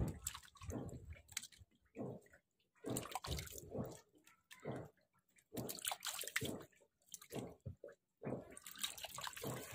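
Knife cutting and scraping through a raw fish on a wet wooden board: short, irregular wet squelching and scraping strokes with brief pauses between them.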